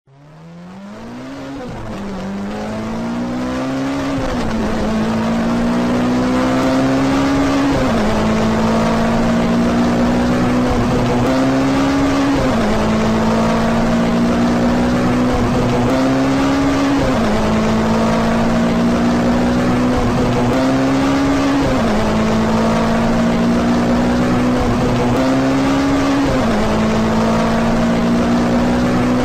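Sports car engine accelerating hard through the gears. It fades in over the first few seconds, then its pitch climbs steadily and drops sharply at each upshift, about every four seconds.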